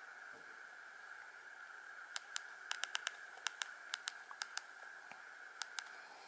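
Faint steady hiss with a run of about fifteen sharp button clicks at irregular spacing, starting about two seconds in and stopping near the end, as between ringtones on a Nokia 105 phone.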